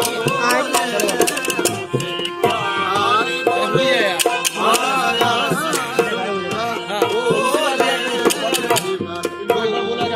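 Rajasthani Manganiyar folk music: a male voice singing with winding, ornamented melodic runs over held harmonium chords, with steady dholak drum strokes and sharp clicks of khartal wooden clappers.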